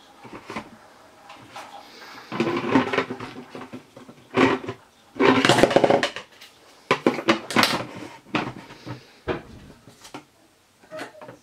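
Hard plastic toy tea set pieces knocking and scraping against each other and the table as the lid of a clear plastic teapot-shaped container is lifted off, handled and put back on. Irregular clatter with a few longer rubbing scrapes in the first half, quieter near the end.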